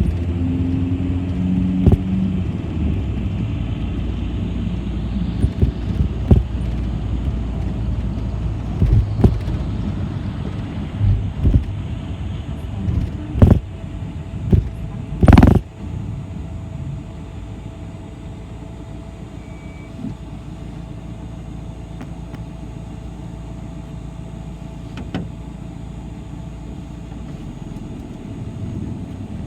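City bus riding along: a steady engine and road rumble with scattered knocks and rattles, the loudest knock about halfway through, after which the rumble settles lower and quieter.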